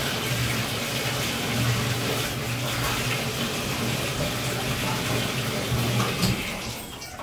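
Water running from a bathtub faucet and splashing as a dog is rinsed in the tub; the flow is shut off near the end.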